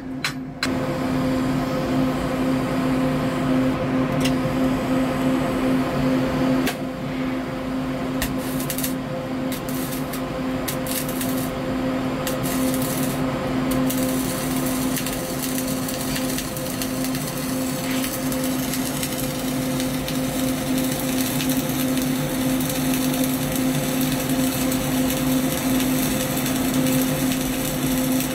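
A few quick taps of a chipping hammer on the steel plate, then a flux-cored (FCAW) arc welding gun with CO2 shielding gas strikes about half a second in and runs a steady, crackling arc with a constant hum underneath, laying a vertical weld bead.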